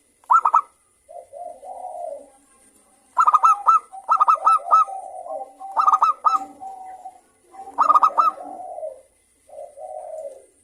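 Zebra dove (perkutut) calling: about four phrases, each opening with a quick run of short, clipped high notes and running into lower, rolling coos.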